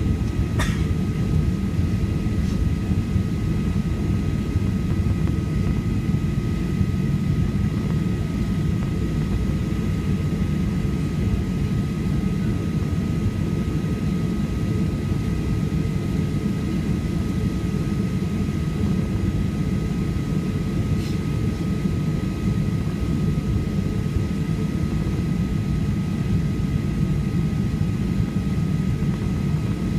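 Steady drone of a Boeing 737-800's CFM56 jet engines and airflow heard inside the cabin: a deep, even rumble with a thin steady whine on top. A single brief click about half a second in.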